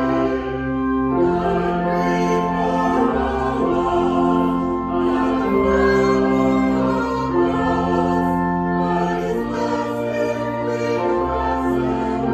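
A choir singing a slow hymn in sustained chords that shift every second or two.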